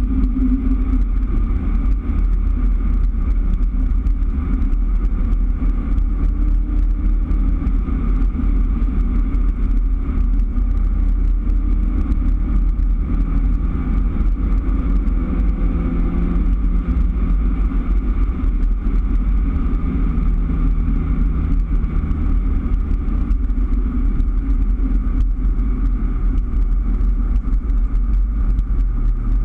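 Steady engine and road noise from a 2003 Daihatsu Terios driving on the open road, heard from inside the cabin. The engine note shifts in pitch a few times and drops lower near the end.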